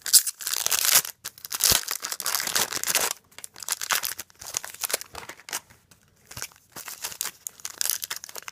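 Trading card packs being torn open and their foil wrappers crinkled by hand. A long run of tearing and crinkling fills the first three seconds, followed by shorter, scattered crinkles.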